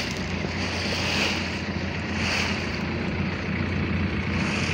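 A boat's engine runs at a steady pitch while the hull cuts through choppy sea. Water rushes and splashes along the side in repeated surges.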